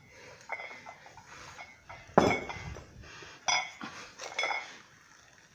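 Barbell weight plates clanking against the bar as it is lifted and lowered through repetitions. There is one loud metallic clank about two seconds in, then a few lighter clinks that ring briefly.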